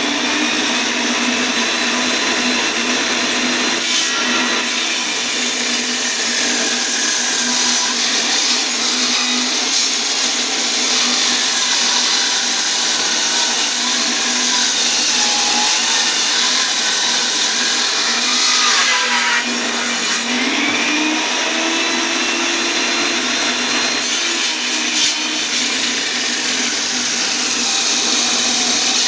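Electric power saw running under load as it rips lengthwise through a thick, heavy log of ash. The motor's pitch sags and recovers in the middle as the blade bogs in the wood; the saw is being pushed hard enough to overheat and cut out.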